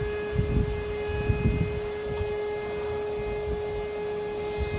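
Steady high-pitched whine of a CNC engraving machine's spindle running at constant speed, with low bumps in the first second and a half.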